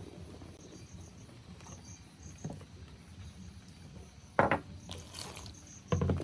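A utensil knocks sharply against a glass mixing bowl while crispy frying powder and duck eggs are stirred together into batter; the loudest knock comes about four seconds in and another near the end. Faint insect chirps repeat in the background over a low hum.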